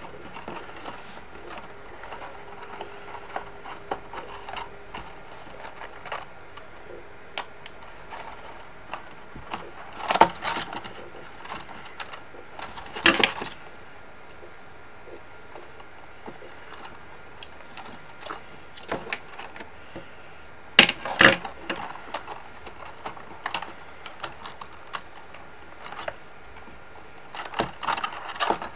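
Card stock being handled: scattered rustles, taps and crinkles as small card pieces are fitted and pressed onto a folded card box, with several louder crackly bursts of paper handling.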